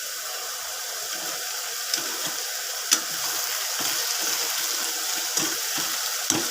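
Vegetables sizzling steadily in a frying pan, with a few sharp clicks of a spoon or spatula against the pan.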